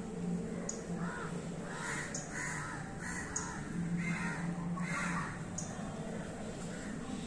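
Crows cawing, about six calls spaced under a second apart, over a steady low hum.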